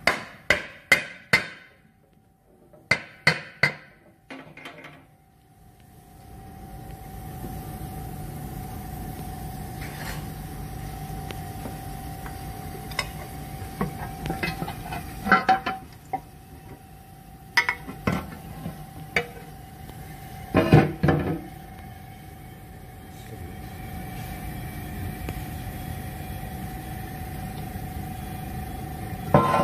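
Sharp hammer strikes on metal: four quick blows, then two more short groups. Then a steady workshop hum with a constant high whine, broken by occasional metal clunks and knocks while the oil pan is worked off the engine block. The loudest knocks come as a pair about two-thirds of the way in.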